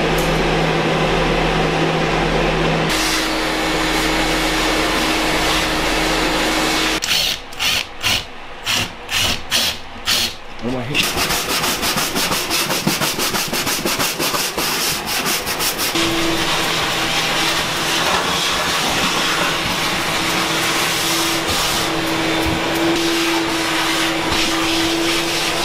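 A long-handled floor scraper scraping a bare floor over a steady motor hum: a run of scraping strokes about two to three a second, then a fast, even rasp for several seconds.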